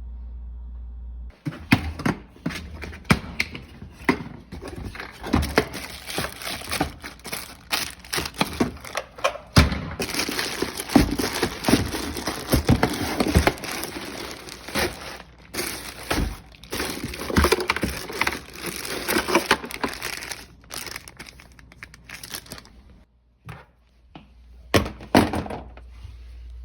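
Hands working plastic dishwasher drain parts while the rear check valve is taken out: a long run of irregular clicks, knocks, snaps and scraping, a short lull, then a few more knocks near the end.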